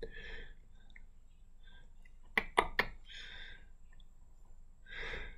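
A quick run of three or four sharp clicks on a laptop about two and a half seconds in, from clicking through to the Decentraland collection, with soft breaths in between.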